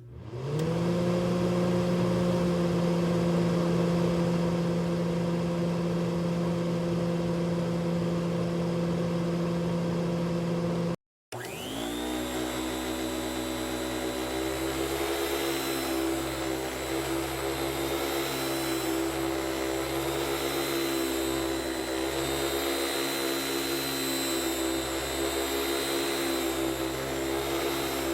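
An electric appliance motor switches on, spins up in pitch and settles into a steady whirring hum. About eleven seconds in it cuts off abruptly, then a second motor starts, spins up and runs steadily with a high whine on top.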